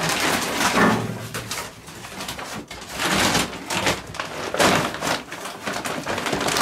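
Charcoal bags, a plastic briquette bag and a paper sack, rustling and crinkling as they are handled and lifted, in dense irregular crackles, with a short low hum about a second in.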